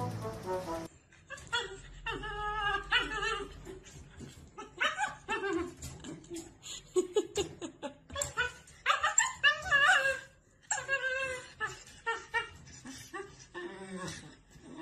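A puppy whining and yowling in repeated short, wavering calls.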